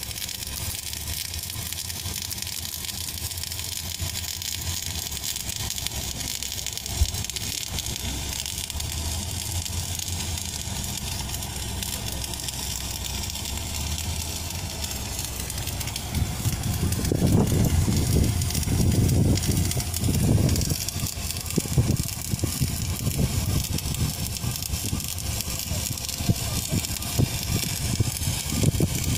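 Wire-fed welding arc of an automatic pipeline welding carriage, crackling and sizzling steadily as it welds around a steel pipe joint. About halfway through, irregular low rumbling thumps join it and are the loudest thing for the rest of the time.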